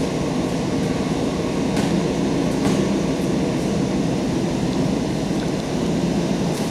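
Steady low rumbling noise, with a couple of faint knocks about two to three seconds in.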